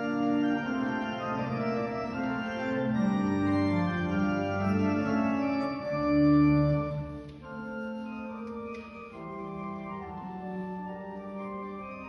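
Church pipe organ playing slow chords of held notes that change every second or so, fuller and louder for the first seven seconds, then dropping to a softer passage.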